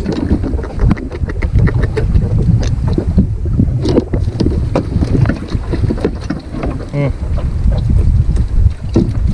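Wind rumbling and buffeting on the microphone, with irregular light clicks and knocks from fishing line and a small fish being handled over the boat's wooden deck.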